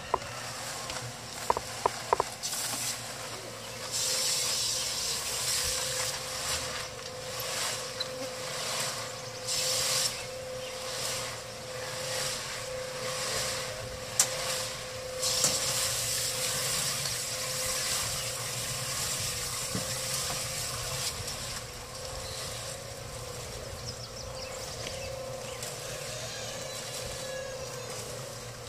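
Small portable cement mixer running: a steady motor hum, with the rushing noise of concrete mix tumbling in the rotating drum swelling and fading again and again.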